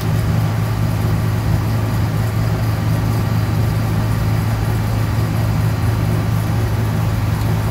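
Recycling machine running: a loud, steady machine drone with a strong low hum that does not change.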